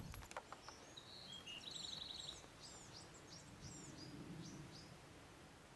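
Faint bird calls in a quiet open-air lull: a short rapid trill, then a run of brief high chirps. A few faint clicks come right at the start.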